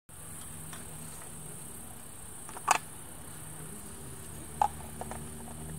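Steady high-pitched chirring of insects in the summer night over a faint low hum, with two short sharp sounds, one about halfway through and another about two seconds later.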